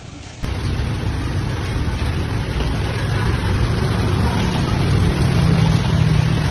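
Storm noise from strong wind and heavy rain: a loud, steady rush with a low rumble of wind buffeting the microphone. It starts abruptly about half a second in.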